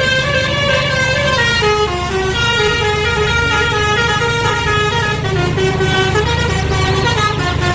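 Indonesian 'telolet' bus horn, a set of musical air horns, playing a stepping multi-note tune, with a low rumble underneath.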